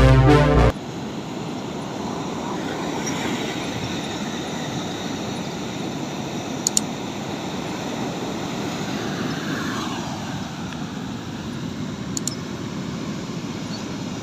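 Steady rushing outdoor background noise, with two faint clicks, one about halfway through and one near the end. Synthesizer intro music cuts off within the first second.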